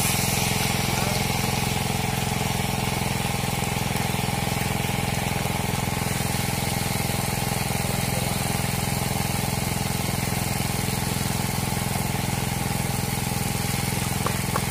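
A motor-driven water pump running at a steady speed with an even, unchanging hum.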